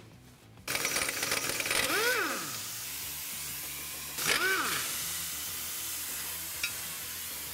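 Compressed-air tool hissing steadily as it works on the drum brake backing plate to get it off the rear axle. Twice it spins up and back down in a short rising-then-falling whine.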